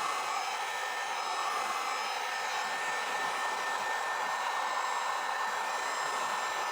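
Hot-air blower running steadily, a continuous rush of air with a faint high whine, heating a glued insole to activate the nairite contact cement.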